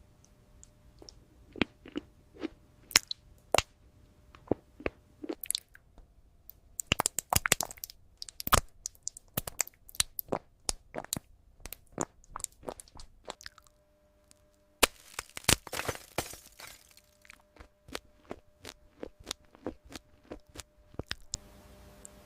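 Close-miked eating sounds: crisp crunching bites and chewing of desserts, a run of sharp separate crackles with two denser bursts of crunching, about a third of the way in and again about two-thirds through.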